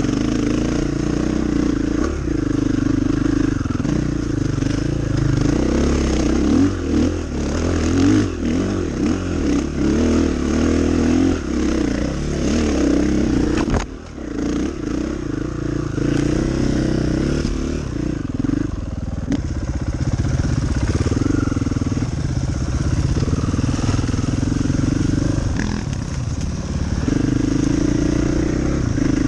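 KTM 500 EXC enduro motorcycle's single-cylinder four-stroke engine running under load off-road, the revs rising and falling with the throttle. There is one brief dip in the sound about halfway through.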